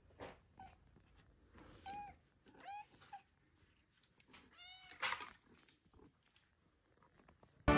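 Domestic tabby cat meowing, three clear short mews about two seconds in, just under three seconds in, and near five seconds, with a few fainter chirps between. A sharp knock comes just after the last mew.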